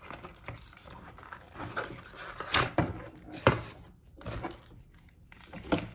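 A cardboard and plastic yo-yo box being handled and pulled open, with irregular rustling and crackling and a few sharp knocks about halfway through.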